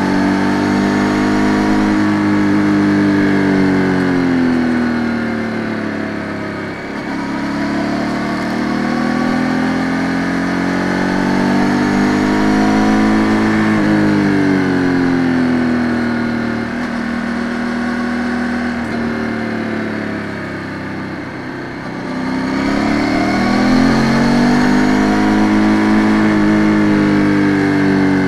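Ducati Multistrada 950 S's 937 cc V-twin engine under way on the road. Its pitch climbs as the throttle opens and sinks as the rider rolls off for bends, in several long rises and falls. It goes quieter twice when off the throttle.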